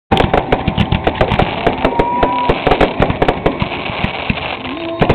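Fireworks display: a rapid, continuous barrage of bangs and crackles, several a second, overlapping with one another.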